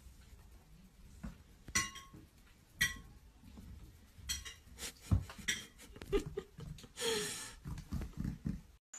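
Scattered light clinks and taps of small hard objects, about a dozen at irregular intervals, a few with a short ring, and a brief rustle about seven seconds in.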